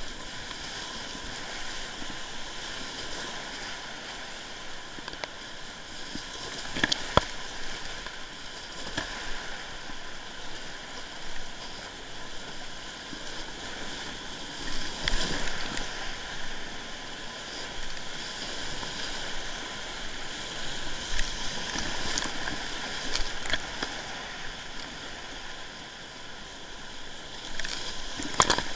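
Whitewater rapids rushing around a kayak, heard close from the boat itself, with sudden sharp splashes of water hitting the boat and camera several times, the loudest about seven seconds in and near the end.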